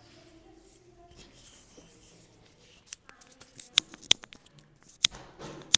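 Quiet room tone, then a handful of sharp, short clicks spread over the last three seconds, from a small object being fiddled with in the hands.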